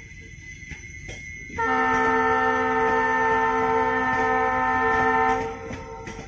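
Air horn of a WDP4B diesel locomotive sounding one long, steady blast of about four seconds, starting about one and a half seconds in, after a faint high tone. It is one of the repeated blasts sounded after the alarm chain was pulled.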